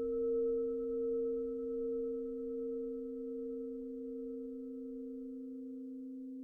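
Sustained pure electronic tones of a meditation 'healing frequency' drone: a low and a middle tone held steady, with a slow wavering swell that settles about halfway through. A fainter high tone fades away near the end.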